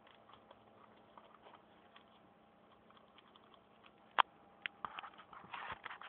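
Paper model pistol being handled: faint scattered clicks and paper rustling, with one sharp click about four seconds in and a quick run of clicks and rustle near the end.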